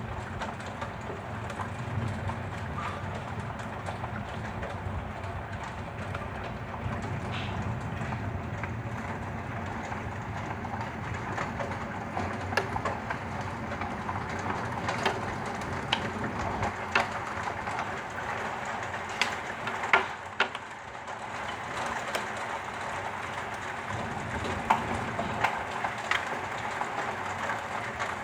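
Heavy rain pouring steadily, with scattered sharp ticks of strikes on a hard surface that come more often in the second half.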